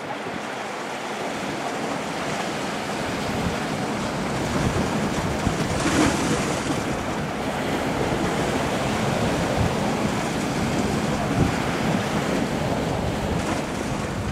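Sea waves washing over a rocky shore, with wind buffeting the microphone. The wash swells briefly about six seconds in.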